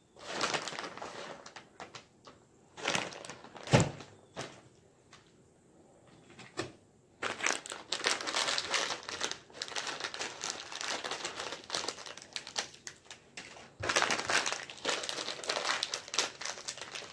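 Plastic snack wrappers crinkling and rustling as a bag of salad toppings is shaken out and a cracker packet is worked and torn open, with the crackers being crushed inside it. There is a single sharp knock about four seconds in.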